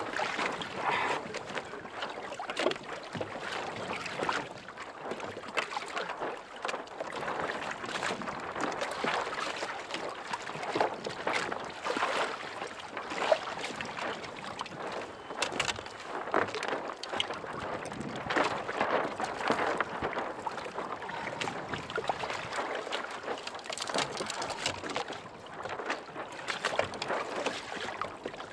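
Sea water lapping and splashing against a kayak hull in irregular slaps, as a hooked European sea bass splashes at the surface alongside and is brought aboard.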